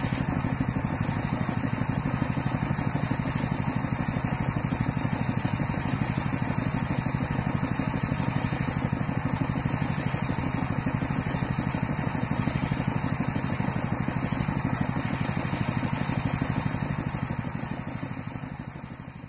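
Compressed-air paint spray gun hissing steadily as paint is sprayed onto a truck bumper, over a motor running with a fast, even pulse. The sound fades out near the end.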